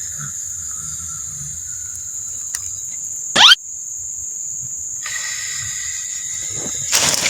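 Insects shrilling in one steady high, thin tone, with a second, lower insect tone joining about five seconds in. A brief, loud swish cuts across about three and a half seconds in.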